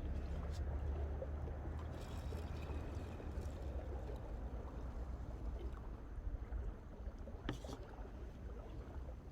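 Small waves lapping steadily at the lakeshore over a low wind rumble, with a few faint sharp clicks, the clearest about seven and a half seconds in.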